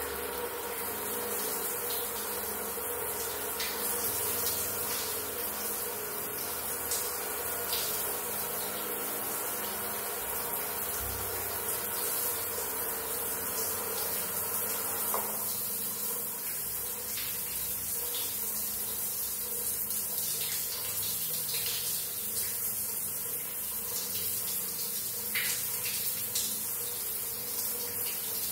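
Water running from a Hydra Polo Plus Digital electric shower: a steady spray hiss.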